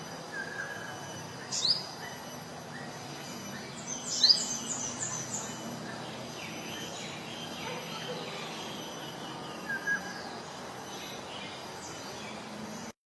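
Sogon songbird calling in the wild. It gives sharp, high sweeping chirps about one and a half seconds in and a quick run of high notes about four seconds in, with a few short lower whistles, over a steady outdoor background hiss.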